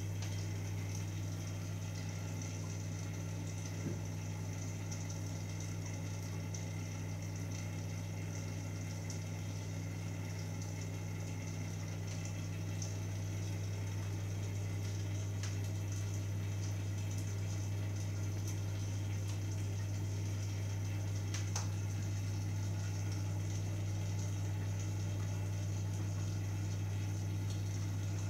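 Aquarium pump humming steadily, with water bubbling at the tank's surface.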